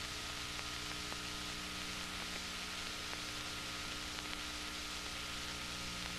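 Steady hiss with a low, steady hum and a few faint clicks: the background noise of an old broadcast recording, with no programme sound over it.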